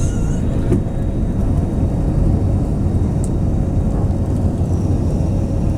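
Airbus A320 jet engines running, heard as a steady, loud, deep rumble.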